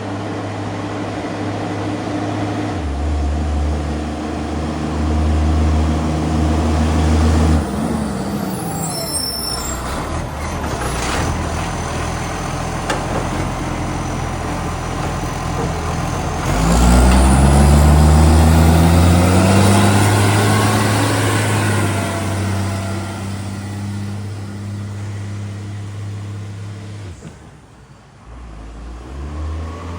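Garbage truck's diesel engine running loudly with an exhaust leak. Its pitch drops about a quarter of the way in, climbs as it revs up just past halfway, and falls away near the end before picking up again.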